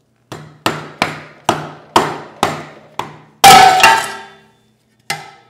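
Rubber mallet knocking on the stock aluminium oil pan of a BMW S1000-series engine, about seven sharp blows at roughly two a second to break the sealant bond. About three and a half seconds in, the pan breaks free and comes down with a much louder ringing metal clatter, followed by one more knock near the end.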